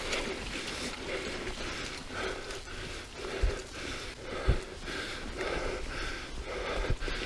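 Mountain biker panting rhythmically while riding, about two breaths a second, with a few short low thumps.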